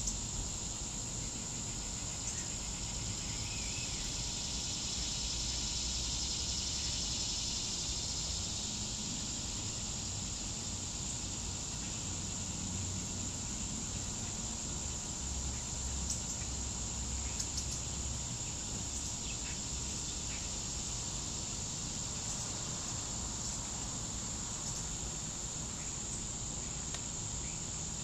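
Insect chorus: a steady, unbroken high-pitched drone.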